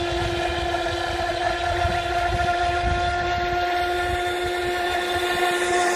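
Feilun FT011 RC boat's brushless motor whining at full throttle as the boat speeds across the water: a steady, unchanging high whine over a low rumble.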